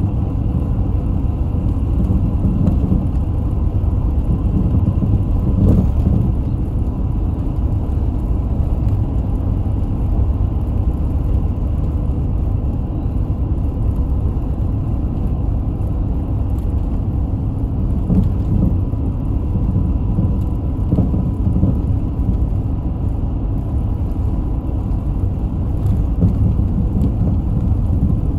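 Small route bus running, heard from inside the cabin: a steady low rumble of engine and road noise with a faint constant whine and a few light knocks.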